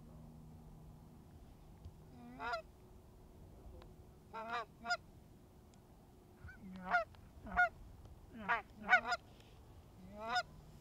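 Canada geese honking as they come in to the decoys: a run of about eight short honks that start about two seconds in, some breaking from a low note up to a higher one, irregularly spaced and bunched in the second half.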